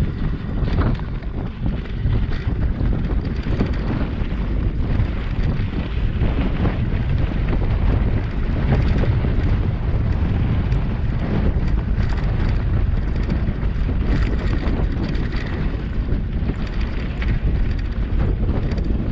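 Wind buffeting an action camera's microphone as a mountain bike rolls along a dirt single track, with scattered clicks and rattles from the bike jolting over stones.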